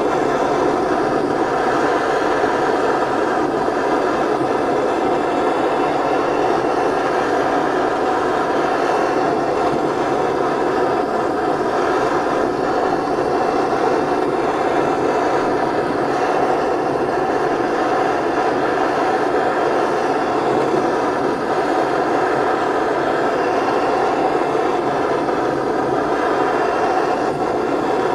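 Gas blowtorch burning with a steady roar, heating a lathe change gear to expand it for a shrink fit.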